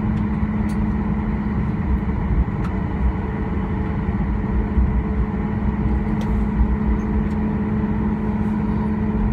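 Cabin noise inside a Boeing 737-800 taxiing, its CFM56 jet engines at idle: a steady hum with a low droning tone over an uneven low rumble.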